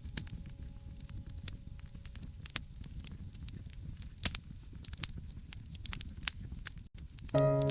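Fireplace fire crackling, with frequent sharp pops over a low steady rumble. Near the end, music with sustained notes comes in.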